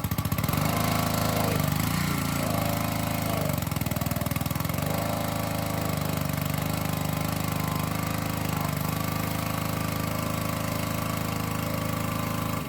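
Honda GC190 single-cylinder engine on a pressure washer running under load from the pump, its speed dipping and recovering several times in the first few seconds, then running steadily before winding down at the end.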